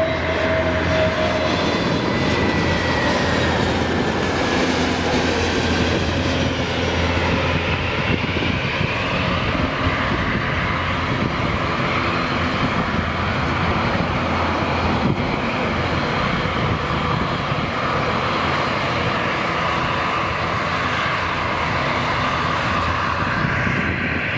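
Airbus A321 jet airliner's twin turbofan engines on landing approach. A high engine whine falls in pitch over the first few seconds as the aircraft passes, then a steady jet noise continues through touchdown and rollout.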